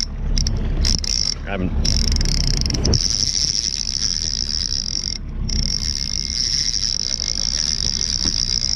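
Level-wind trolling reel being cranked while playing a hooked coho salmon. Its mechanism gives a steady high-pitched buzzing whir that breaks off briefly three times, over a low steady rumble.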